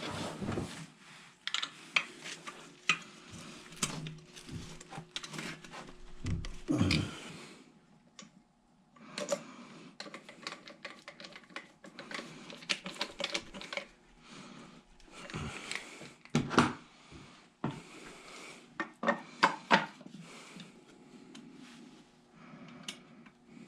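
Irregular clicks, clinks and knocks of hard pool pump parts and tools being handled during a pump seal replacement, with short pauses between them.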